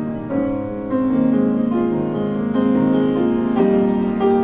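Piano playing an instrumental passage of a slow ballad between sung lines, sustained chords changing every second or so and growing louder about a second in.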